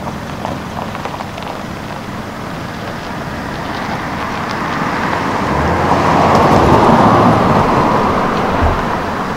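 A car driving past close by: its noise swells over several seconds, peaks about two-thirds of the way through and fades again.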